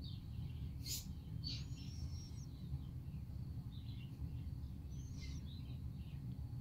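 Newborn puppies squeaking: short, high chirps and squeals come and go several times, over a steady low rumble.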